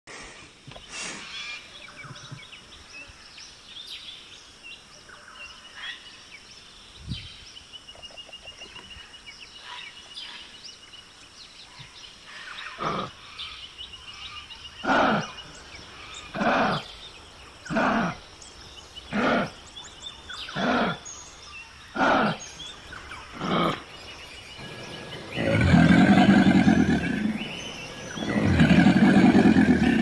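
Wild animal calls in turn: faint chirps at first, then a run of about eight short calls evenly spaced over some ten seconds, then two long, loud, deep calls near the end.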